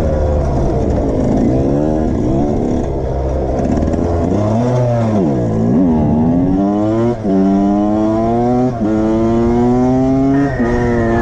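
Suzuki dirt bike engine under the rider, revving hard. Its pitch dips and climbs again around the middle, then in the second half it rises steadily and drops suddenly three times as the rider shifts up through the gears.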